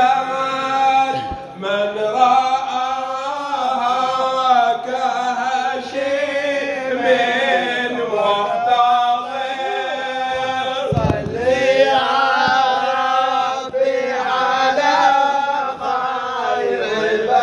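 A group of men chanting a devotional song in Arabic praising the Prophet (salawat), a lead voice on a microphone with the others singing along, unaccompanied by instruments. A dull thump about eleven seconds in.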